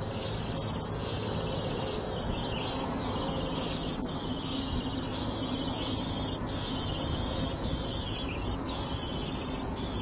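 Steady high-pitched insect trill over a low background rush, with thin high chirps coming and going from black-naped oriole nestlings begging at the nest.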